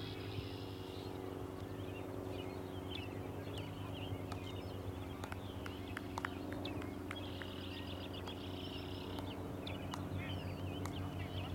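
Songbirds chirping, with a trilled song phrase heard twice, once near the start and again about two thirds of the way through. A steady low hum and a few sharp clicks sit underneath.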